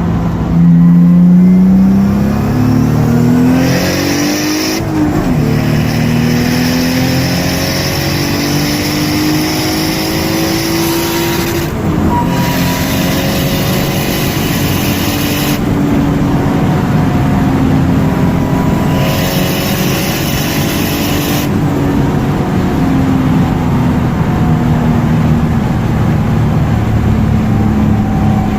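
Turbocharged Toyota 1JZ straight-six with a Magnaflow muffler, accelerating hard under boost. The revs climb, drop at a gear change about five seconds in, and climb again to a second shift at about twelve seconds. After that the engine holds a steadier pitch that slowly falls.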